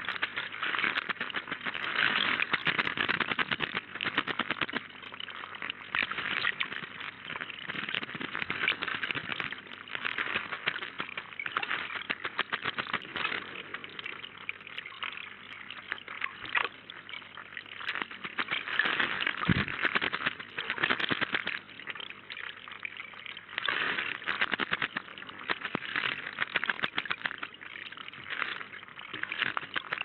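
Male common blackbird bathing in a shallow pond, splashing the water with its wings and body in repeated bouts of rapid flutter-splashes with short pauses between. A single low knock comes about twenty seconds in.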